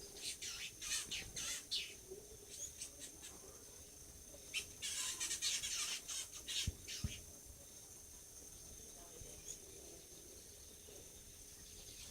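Wild birds chirping in two flurries of quick, high chirps: one in the first two seconds, the other from about four and a half to seven seconds in.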